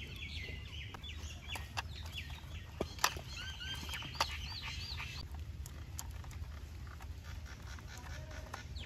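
Faint scattered clicks of a screwdriver and hard plastic as a screw is driven into a toy truck's plastic chassis, the sharpest about three seconds in. Birds chirp in quick repeated calls through the first half, over a low steady rumble.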